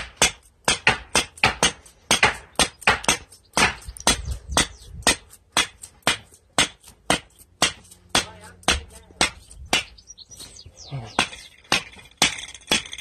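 Hammer repeatedly striking the head of a 3/8-inch earth rod, driving it into the ground, with sharp clanking blows about two or three a second. The blows pause briefly near the end, then resume.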